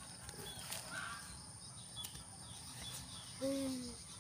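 Quiet outdoor background with a few brief high bird chirps. About three seconds in, a short call with a slightly falling pitch lasts about half a second and is the loudest sound.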